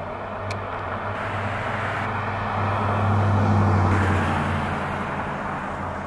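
A road vehicle passing by. Its low engine drone grows louder to a peak about three and a half seconds in, then fades, over steady background traffic noise.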